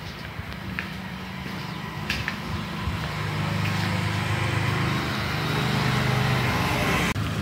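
A motor vehicle's engine running on a nearby road, growing gradually louder from about three seconds in, then cutting off suddenly near the end.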